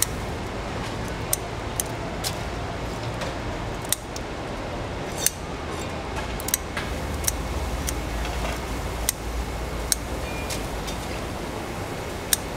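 Kitchen shears snipping through the shell and legs of a raw mantis shrimp: a string of sharp, irregular snips, roughly one a second, over a steady low rumble.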